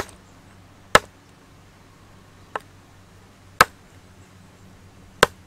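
Large knife chopping frog meat on a round wooden chopping board: five sharp chops at uneven spacing, roughly one a second, the middle one fainter.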